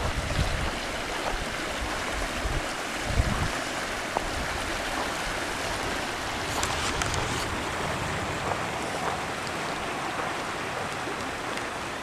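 Shallow creek rushing and splashing steadily over rocks, with a few low thumps in the first few seconds.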